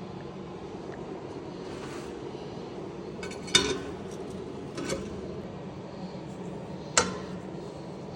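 Volkswagen Golf GTI's 2.0-litre turbo petrol four-cylinder running with a steady low hum. Three sharp metallic clicks cut through it, about three and a half, five and seven seconds in.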